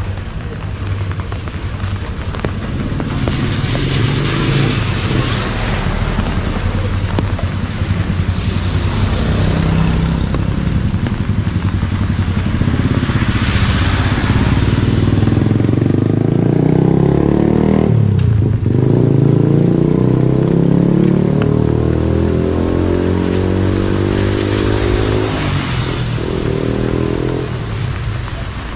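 Street traffic, scooter and car engines, passing close one after another and rising and falling in pitch. One vehicle goes right by about two-thirds of the way through.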